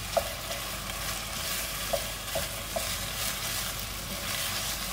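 Pieces of lamb sizzling as they fry in olive oil and tapenade in a saucepan, stirred with a wooden spoon. The spoon knocks against the pan a few times.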